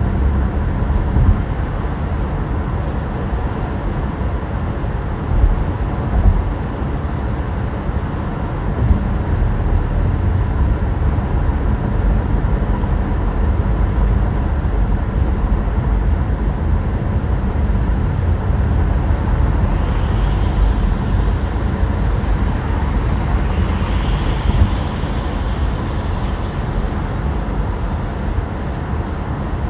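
Cabin noise inside a battery electric car at autobahn speed: a steady low rumble of tyres and wind with no engine sound, with a few brief bumps.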